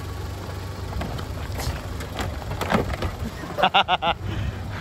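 Scattered sharp clicks and knocks from hand work on a car, over a steady low hum. About three and a half seconds in comes a quick run of four short pitched pulses.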